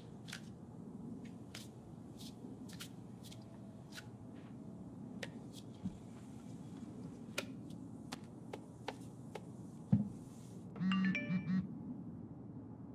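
A phone alert near the end: a short pitched buzz in three pulses, one longer and two short, just after a single soft knock. Before it, a quiet room with scattered faint clicks.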